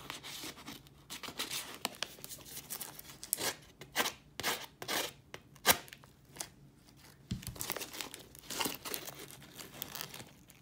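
Packaging being torn and crinkled open by hand, in quick, irregular rips and rustles.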